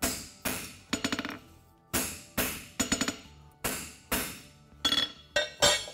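Hand hammer striking a farrier's nail-hole stamp to punch the nail holes in a hot concave steel horseshoe on an anvil. About a dozen sharp metallic strikes come in irregular groups, some as quick doubles, each with a short ring.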